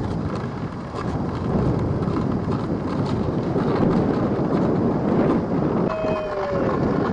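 Wind buffeting the camera microphone: a rough, steady low rumble. About six seconds in, a short faint tone falls in pitch.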